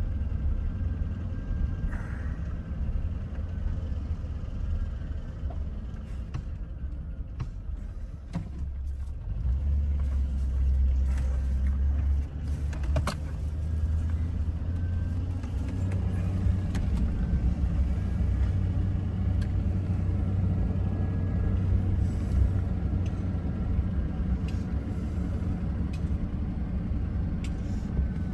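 Car's engine and road noise heard from inside the cabin while driving slowly: a steady low rumble that grows a little stronger about ten seconds in, with a few faint clicks.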